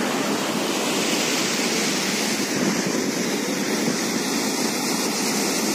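Floodwater rushing through and below a dam's open sluice gates: a steady, even rush of turbulent water.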